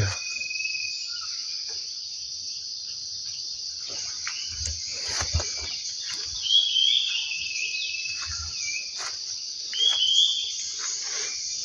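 Steady high-pitched chirring of insects, with a few short bird chirps over it and the soft thuds and rustle of footsteps through ground cover.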